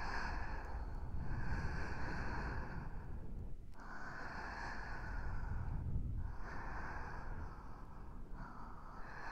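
Slow, close breaths blown into a binaural microphone, heard in both ears: long exhales of about two seconds each, separated by brief pauses, over a steady low rumble.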